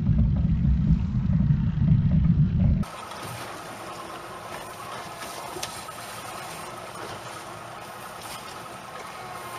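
Loud low rumble of wind buffeting the microphone, cut off suddenly about three seconds in, followed by the quieter steady drone of the boat's outboard motor running at trolling speed, with a faint steady whine and water hiss.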